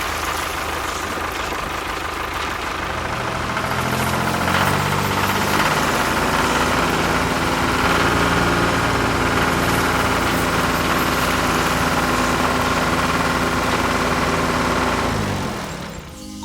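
Small engine running, its pitch climbing as it speeds up a few seconds in, holding steady, then winding down and stopping near the end.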